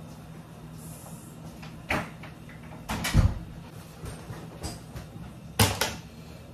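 A heavy wooden room door with a closer swings shut with a loud thud about three seconds in, after a lighter click. Two sharp knocks follow near the end.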